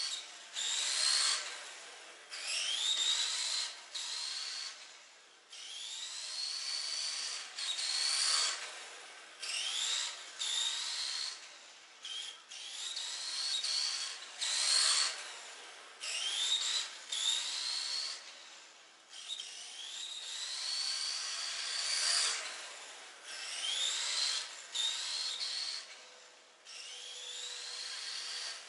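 Tamiya Light-Tune brushed electric motor and gears of a TT-01 radio-controlled car whining as it accelerates in repeated bursts. The pitch climbs with each burst of throttle and cuts off sharply when the throttle is released, every second or two.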